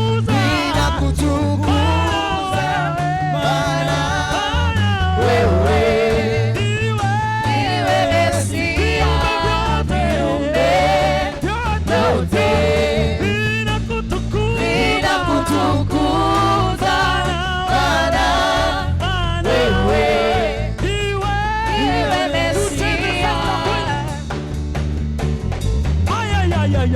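Live gospel praise band playing a Swahili worship song, with voices singing over a steady bass and drum beat.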